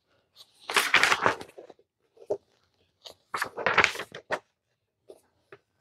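Paper pages of an instruction booklet being turned and pressed flat by hand: two rustling swishes, about a second in and again around three and a half seconds in, with a few light paper taps between.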